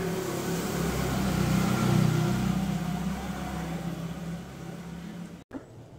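Motor vehicle passing by: a steady engine hum that swells to its loudest about two seconds in and then fades, cut off abruptly near the end.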